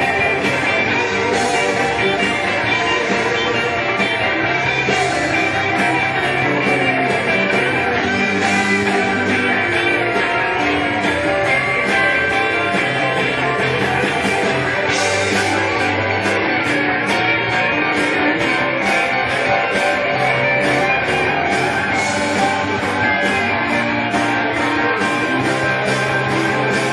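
Live band playing an instrumental jam: electric guitars over bass and drums, with cymbal crashes.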